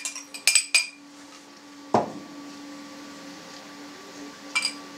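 Glass and metal kitchenware clinking: a quick run of sharp ringing clinks as a small glass knocks against a stainless steel saucepan while sugar is tipped in, a single dull knock about two seconds in, and another short clink of a spoon on a glass near the end. A faint steady hum runs underneath.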